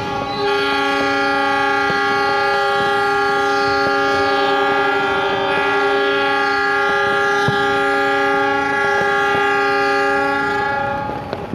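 Several diesel locomotive horns blow together as one long, steady multi-note chord, cutting off near the end.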